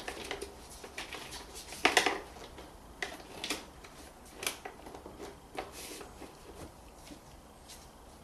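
Scattered knocks, clicks and rustles of the plastic air box and intake pipe being handled and pushed back into place, the loudest knock about two seconds in.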